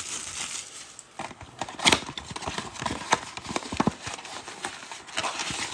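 Hands opening a cardboard box of trading cards and pulling out the foil card packs: irregular taps, knocks, scrapes and crinkles, with one louder knock about two seconds in.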